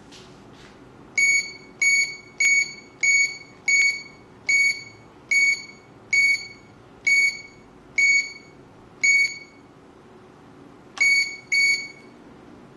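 Security alarm keypad controller giving a short, high beep for each key pressed as a programming code is keyed in: about eleven beeps at uneven intervals, then after a pause a closing pair of beeps near the end.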